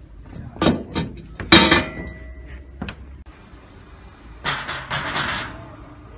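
Clanks and knocks of metal-framed cabinet panels and fittings being handled while a foodtruck is set up: a few sharp impacts in the first two seconds, one leaving a brief metallic ring. About 4.5 s in comes a second-long scraping clatter as an aluminium staircase is moved into place.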